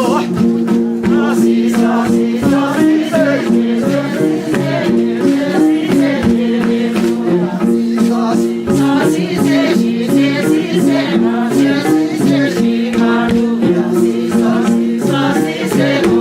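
Music for a Sherpa dance: voices singing a folk tune over sustained, stepping instrumental notes, with a steady rattling beat.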